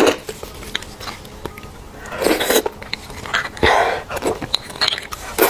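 Close-miked eating of roasted beef bone marrow: several short bursts of sucking and chewing mouth sounds, with a few light clicks between them.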